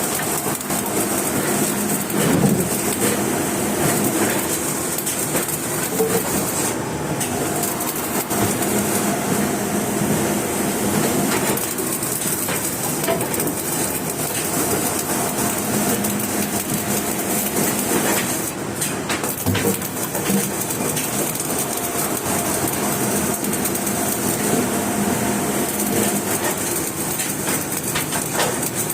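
Electric welding arc crackling and sizzling without a break, over a faint steady hum.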